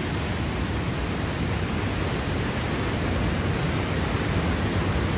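Steady rush of hurricane wind with heavy surf behind it, an even noise heaviest at the low end, the wind buffeting the microphone.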